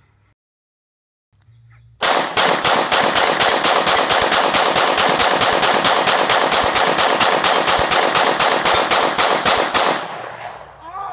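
Glock 26 9mm pistol fired in rapid semi-automatic succession, about four to five shots a second for some eight seconds, running through a long 33-round magazine. The shots echo away near the end.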